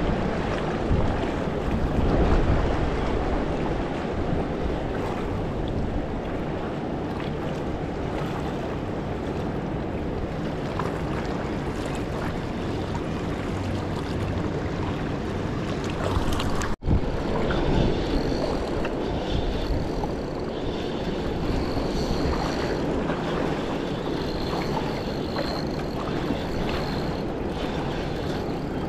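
Steady wind rumbling on the microphone, mixed with river water lapping against a rocky bank. The sound cuts out for an instant a little over halfway through.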